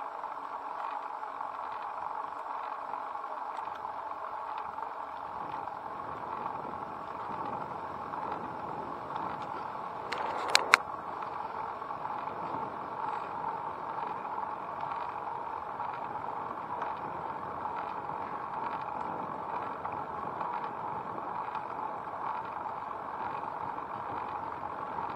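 Steady rolling noise of a bicycle riding on asphalt, with two sharp knocks close together about ten seconds in.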